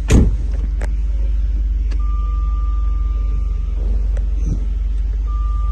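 Jaguar XK8's engine idling, heard from inside the cabin as a steady low hum, with a sharp knock right at the start. A steady high warning tone from the car sounds twice, each time for over a second.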